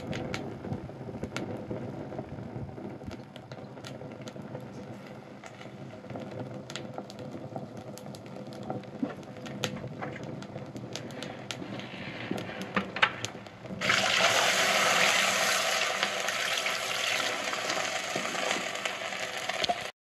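Burning sneakers crackling and popping in an open flame. About 14 seconds in, a sudden loud, steady hiss starts as the fire is put out, leaving the pile in a thick white cloud.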